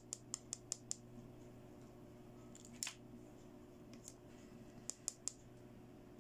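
Sharp little clicks of fingernails and fingers on a small plastic toy comb: a quick run of about six clicks in the first second, one louder click near the middle, and three more near the end, over a faint steady hum.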